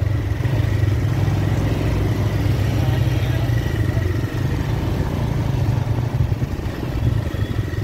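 TVS motorcycle engine running steadily while riding along a road, a low rumble with a faint steady whine above it.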